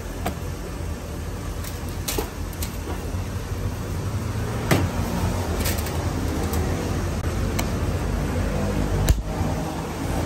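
Scattered clicks and knocks of hand tools and plastic parts as a car's AC blower housing is unfastened and taken down from under the dashboard, over a steady low hum. The loudest knock comes near the end.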